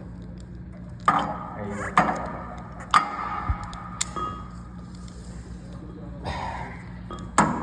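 Ratchet strap hardware clicking and clanking as the strap is worked: four sharp clicks about a second apart, then another near the end, over a steady low hum.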